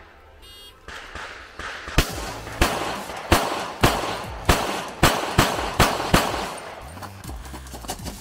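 A shot timer's short start beep about half a second in, then a string of about ten pistol shots over some five seconds, coming faster after the first few, with a few fainter shots near the end.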